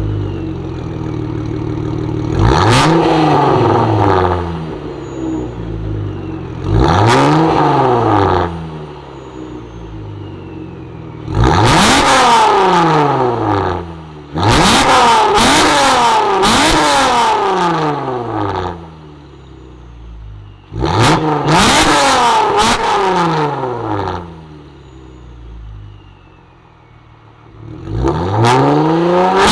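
Ripp-supercharged 3.6-litre V6 Dodge Challenger, with catless downpipes, X-pipe, resonators and active mufflers, being revved about six times. Each rev climbs and falls back to idle, and two of them are held for two to three seconds.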